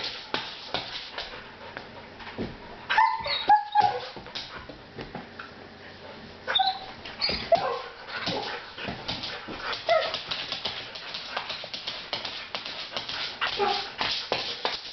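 A dog's claws clicking and scraping rapidly on a wood floor as it paws and prances. Short whimpers and yips break in a few times, at about 3, 7, 10 and 14 seconds.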